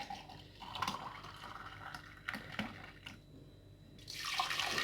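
Lemon juice being poured into a serving glass, with a few light clicks; the pouring noise is loudest near the end.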